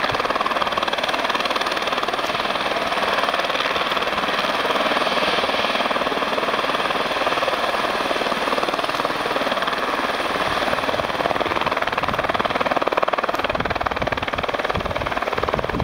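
Light turbine helicopter running on the ground with its rotor turning: a steady turbine whine under a rapid rotor chop. The low thudding of the blades grows stronger near the end as it works up toward lift-off.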